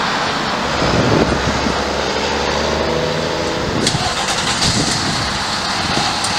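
A fire apparatus diesel engine starting and running with a low rumble for about three seconds, over steady street noise. A sharp click comes near the middle, followed by a faint steady high whine.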